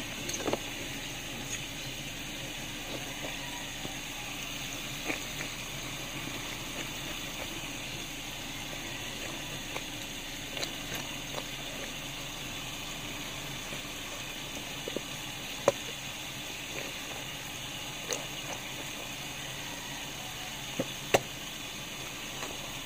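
A cleaver knocking now and then against a wooden cutting board while cutting through a ripe jackfruit, in scattered sharp taps with the loudest about two-thirds of the way through and near the end, over a steady background hiss.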